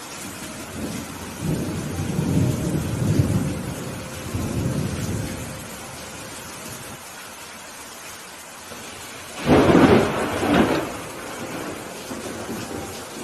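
Steady rain under rolling thunder: a low rumble builds about a second in and fades by the middle, then a louder, sharper thunderclap with two peaks hits near the end.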